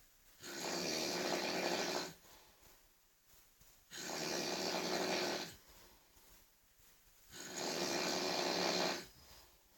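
A person snoring very loudly: three long snores, each about a second and a half, coming every three and a half seconds in an even rhythm, with quiet gaps between them.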